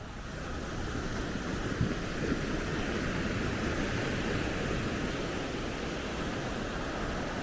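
Sea surf washing onto a sandy beach, a steady rush of waves that swells slightly in the first second, with wind rumbling on the microphone.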